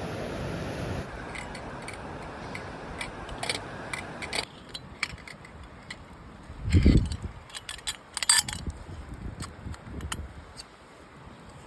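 Scattered light clicks and clinks of hard objects being handled, with two heavier knocks, at about seven and eight seconds in, over a steady rushing background that drops away after the first second.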